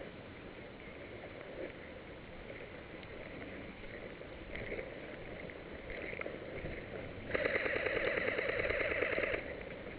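Airsoft electric gun firing one rapid full-auto burst lasting about two seconds, starting about seven seconds in, over faint background noise.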